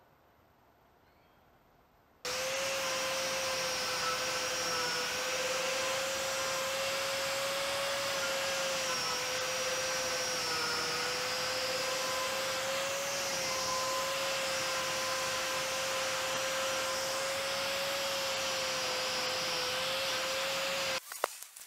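Angle grinder running on a steel box-section beam of the stand, a steady whine whose pitch dips slightly now and then. It starts abruptly about two seconds in and cuts off just before the end.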